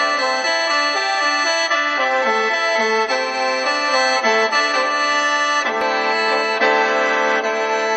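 Khaen, the Isan/Lao bamboo free-reed mouth organ, playing a continuous melody over a sustained drone, with the notes stepping from one to the next without a break.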